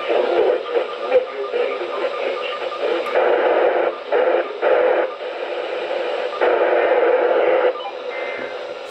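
Weather radio receiver hissing with static between broadcasts, the noise swelling louder several times.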